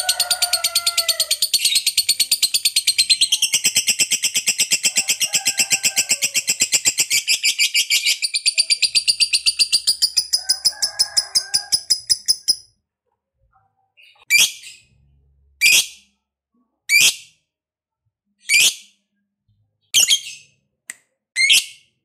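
Lovebird giving its 'ngekek panjang', a long, rapid, high-pitched chattering trill that cuts off about twelve seconds in. It is followed by about seven short, sharp single calls spaced a second or so apart.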